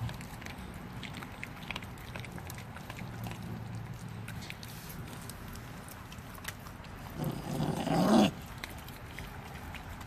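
Bulldogge puppies gnawing and crunching frozen raw fish, a steady run of small wet bites and clicks. About seven seconds in there is a brief, louder low vocal sound that rises in pitch.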